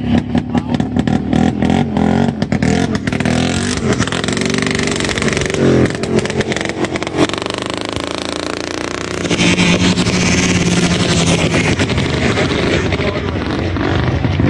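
Vintage two-stroke snowmobile engines running, with a rattling, popping run in the first few seconds, a steady higher-revving drone from about two-thirds through, and the pitch rising again near the end as an engine is revved.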